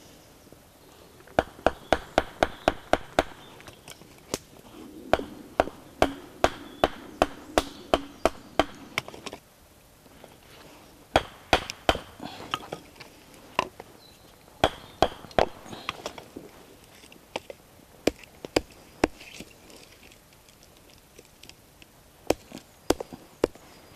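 Hatchet knocking into a green branch on a wooden chopping block, splitting it lengthwise in half: runs of sharp wooden knocks, about four a second, broken by short pauses.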